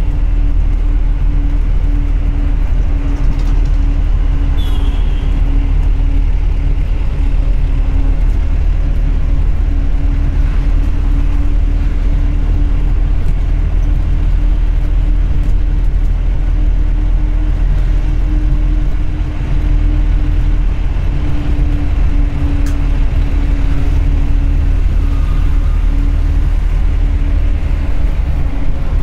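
Mahindra Thar on the move, heard from inside its rear compartment: steady engine drone with a constant hum, along with road and wind noise.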